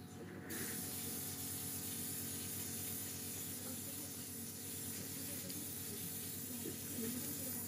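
Steady hiss that steps up about half a second in and then holds, with a faint low hum underneath.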